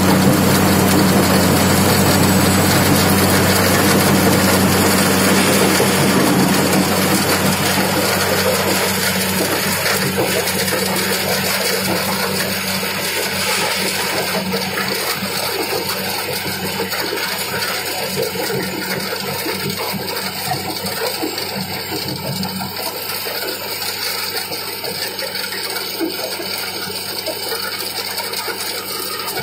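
Crushing and screening plant running under load: diesel engines hum steadily while loads of gravel rattle and clatter through a steel hopper and onto the conveyors. The engine hum is strongest in the first few seconds and the whole noise eases off gradually.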